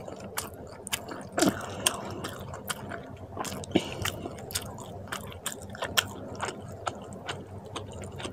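Close-up wet chewing and lip smacking on a mouthful of rice and fish curry, with many short, irregular clicks.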